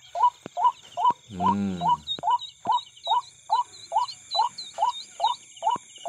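Black downy sintar chicks peeping in a steady series, about three short rising-and-falling peeps a second. A deeper call comes about one and a half seconds in, along with a few light clicks, and insects trill steadily behind.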